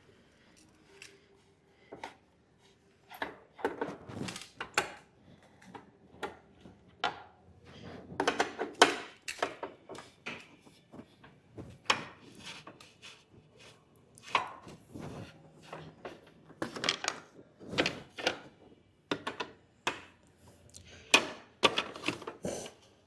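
Scattered clicks, clinks and knocks of hand tools on 8 mm bolts and plastic side-fairing panels as the fairings are unbolted and lifted off. The knocks come in small clusters a few seconds apart.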